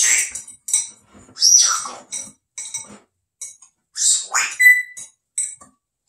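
African grey parrot making a run of short squawks, chirps and clicks, with a brief clear whistle about three-quarters of the way through.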